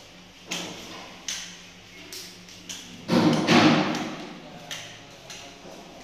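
Scattered knocks and thuds, with a louder cluster of bangs about three seconds in, echoing in bare tiled rooms.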